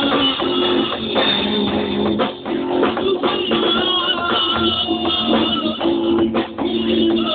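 Rock band playing an instrumental passage with no singing: guitar over drum kit and bass guitar.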